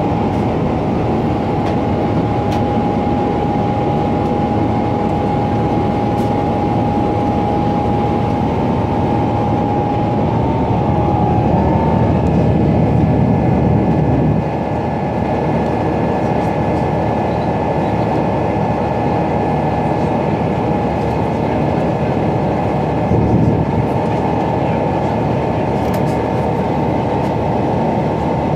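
Cabin noise of a Boeing 777-300ER in its climb: the steady roar of the GE90-115B engines and airflow heard from a window seat near the engine, with a steady high whine over it that shifts slightly in pitch about halfway through.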